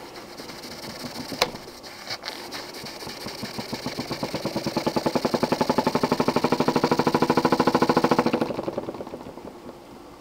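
Jensen 20G model steam engine running with a fast, even bumping knock from its cylinder, swelling louder and then dying away near the end, after a single sharp click early on. The knock is the sign of a loose piece of rubber seal inside the cylinder.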